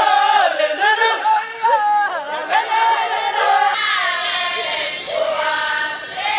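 A group of voices singing together, with several pitched lines moving at once. The overall sound shifts a little about four seconds in.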